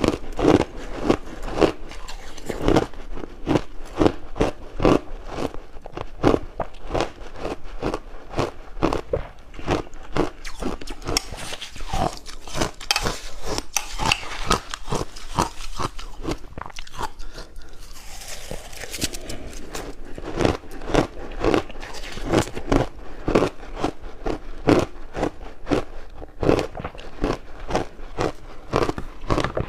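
Close-miked crunching of purple ice being bitten and chewed, a continuous run of sharp cracks several times a second.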